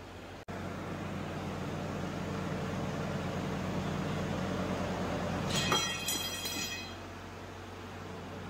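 Hydraulic press with its pump motor running with a steady hum. The sound builds for several seconds, then a brief high metallic squeal comes about two-thirds of the way through before it settles back.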